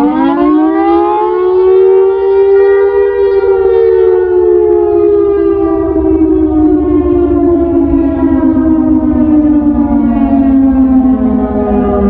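Siratone EOWS 612 electronic siren, pitched down by half, sounding the attack wail. Its tone rises quickly at the start, peaks about three seconds in, then slowly falls for the rest, over a low rumble.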